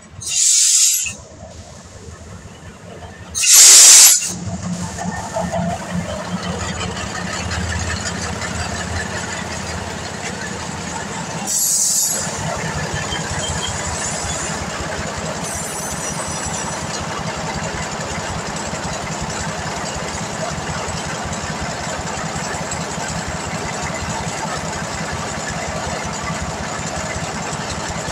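Hellenic Train MAN class 621 diesel railcar standing at a halt: three short bursts of compressed-air hiss, the second and loudest about four seconds in and a smaller one near twelve seconds. Between and after them the diesel engine idles steadily.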